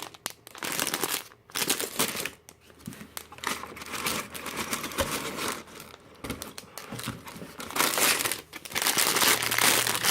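Plastic LEGO parts bags crinkling in irregular bursts as they are handled and taken out of the box, loudest near the end.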